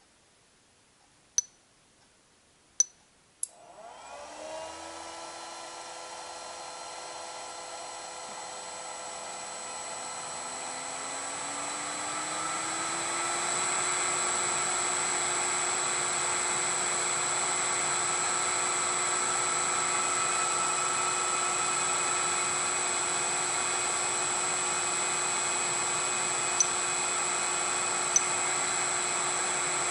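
Three clicks, then a 208 V three-phase electric motor fed by a Siemens variable-frequency drive starts about three and a half seconds in. Its hum and whine rise in pitch and grow louder for about ten seconds as the drive ramps it up to speed, then it runs steadily with a high, steady whine. Two more clicks come near the end.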